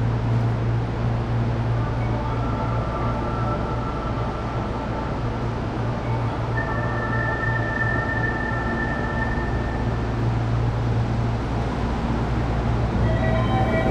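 Steady low hum of an electric subway train standing at the platform with its doors open. Faint held tones sound over it from about two seconds in, and several more start near the end.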